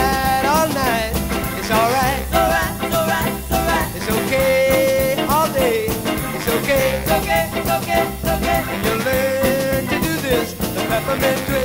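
Upbeat rock-and-roll background music with a steady beat and a lead melody of held, wavering notes.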